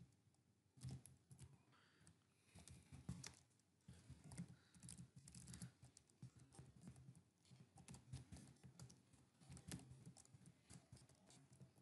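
Faint typing on a computer keyboard: quick, irregular keystroke clicks.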